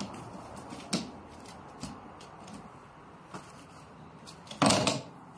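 Honda CR-Z windshield wiper arm being pulled and worked off its wiper motor shaft by hand: small clicks and scrapes, a sharp click about a second in, and a louder clatter lasting under half a second near the end.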